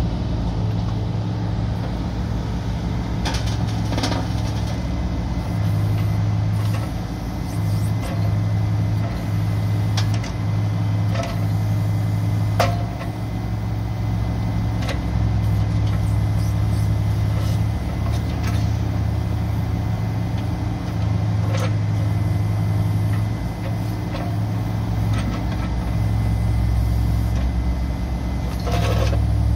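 2018 New Holland E30C mini excavator's diesel engine running steadily while its hydraulics work the boom, arm and bucket, the engine note swelling and dipping under the changing load. Occasional sharp metallic clanks come from the working machine.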